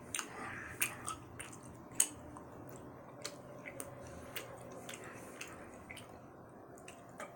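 A person chewing a large mouthful of gummy candy: soft, irregular wet smacks and clicks of the mouth.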